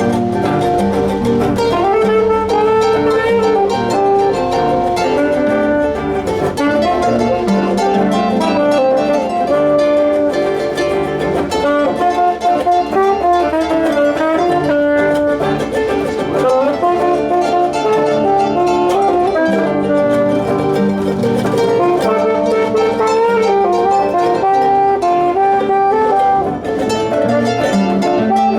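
Instrumental music: a busy melody of changing notes over a steady accompaniment, without a break.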